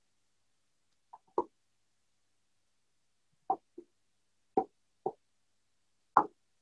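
Cooking utensil knocking against a pan as chicken and vegetables are stirred together: about six short, separate clacks.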